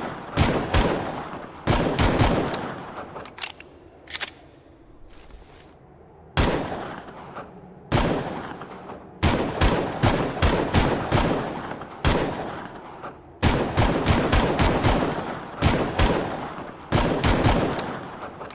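Pistol-fire sound effect for a longslide pistol: quick strings of shots, several a second, repeated about ten times. Each string trails off in an echoing tail before the next begins.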